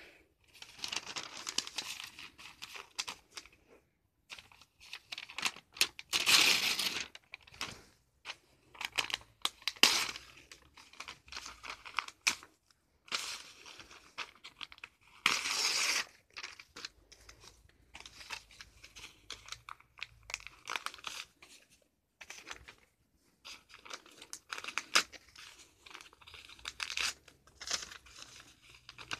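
Paper being torn and crumpled in irregular bursts of crackling, with longer tears about six and fifteen seconds in.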